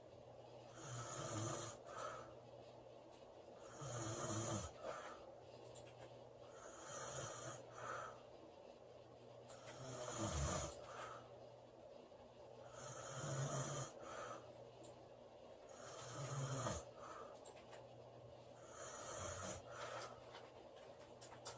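A woman snoring in a regular rhythm, one snoring breath about every three seconds, each with a low rattling snore and a breathy rush of air.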